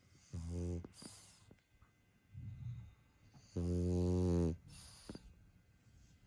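A French bulldog snoring in its sleep: two loud, low, buzzing snores about three seconds apart, with softer breathy, hissing breaths between them.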